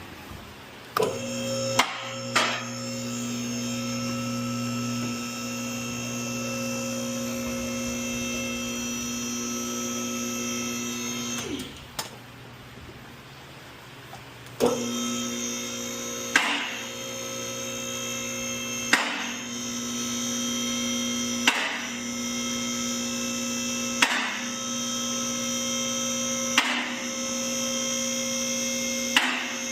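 Electric motor running with a steady hum. It stops for a few seconds partway through, then starts again. A sharp click sounds about every two and a half seconds while it runs.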